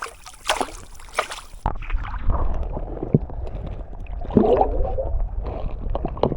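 River water gurgling and splashing, with a steady low rumble setting in a little under two seconds in.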